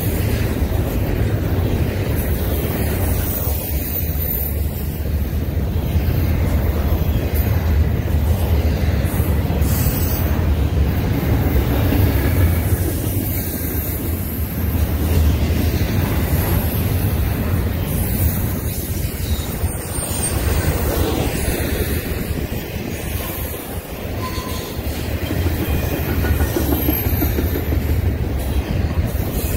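Double-stack intermodal well cars rolling past at close range: a steady, loud rumble of steel wheels on rail, with faint high squeals from the wheels now and then.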